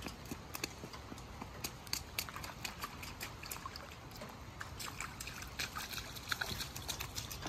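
Small children's shoes stepping and splashing through a shallow rain puddle on wet asphalt: many light, irregular footsteps with watery splashes, over a steady low outdoor rumble.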